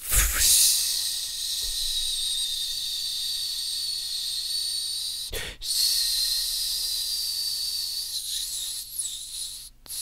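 A firework fountain's fuse catches and hisses steadily as it burns down, with a brief break about halfway through.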